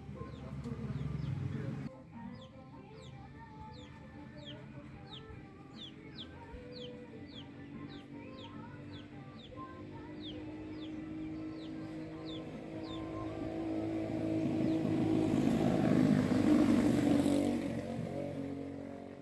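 Village roadside ambience: a bird repeats a short, high, falling chirp about twice a second, while chickens cluck lower down. Near the end a motor vehicle passes on the road, swelling and fading.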